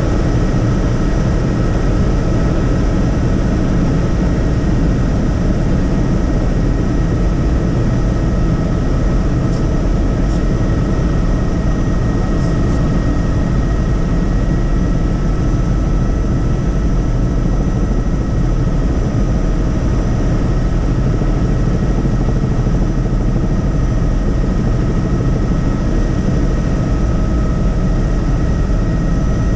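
Helicopter in flight: the steady, unchanging noise of rotor and engine in the cabin, with a thin steady whine above it.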